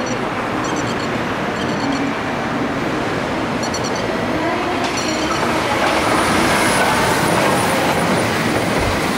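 A train running on rails, a steady noise of wheels on track that grows a little louder about six seconds in.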